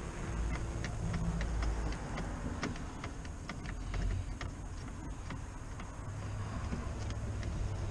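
Scattered small clicks and taps of a steel switch panel and its toggle switches being handled and fitted into the plastic dash trim, over a steady low rumble.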